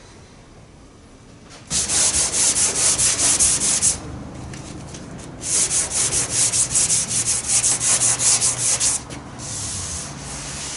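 Primer surfacer on a 1978 Lincoln Mark V's body being block-sanded by hand to level it. Quick, even back-and-forth strokes start about two seconds in, pause briefly around four seconds, then run again and grow softer near the end.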